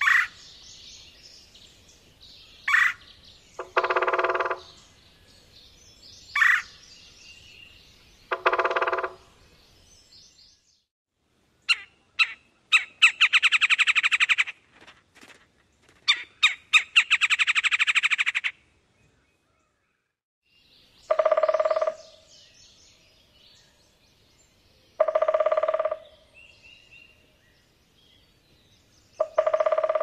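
Recorded red-bellied woodpecker sounds played in turn. First come short call notes and drawn-out "kwur" calls. Midway there is a rattle call that starts slow and speeds up. Near the end come three drum rolls of about a second each, spaced a few seconds apart.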